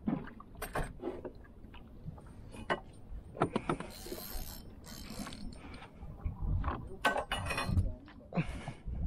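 Fishing tackle and gear clicking and knocking in a small wooden boat: irregular short clicks and knocks, coming in clusters about a third of the way in and again near the end.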